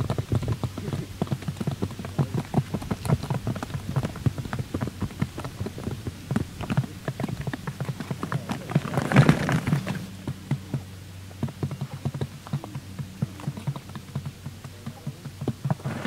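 Quail pecking rapidly at grain on the trap's paper and cardboard: a dense, irregular patter of small taps, with a louder flurry a little past halfway.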